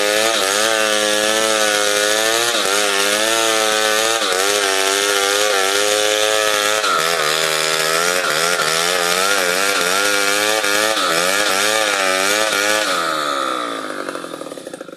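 Two-stroke chainsaw running at high revs while cutting along a log being squared into timber, its pitch dipping and recovering repeatedly as the chain bites into the wood. Near the end the revs drop and the sound dies away.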